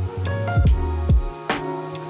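Background electronic music with a steady beat: deep held bass notes, a few pitched melody notes and kick drums that drop quickly in pitch.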